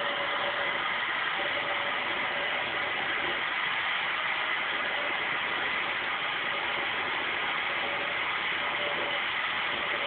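Vacuum cleaner running steadily, a constant rush of air with a high whine, as it sucks loose hair from a dog's coat.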